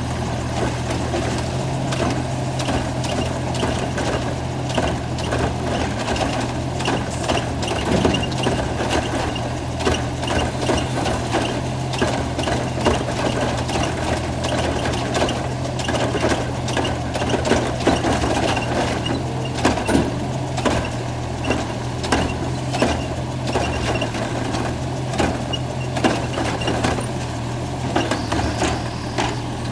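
Automated side-loader garbage truck's lifting arm holding a trash cart upside down over the hopper and shaking it, with many knocks and rattles of the cart and arm. Under it runs the steady hum of the truck's idling natural-gas engine.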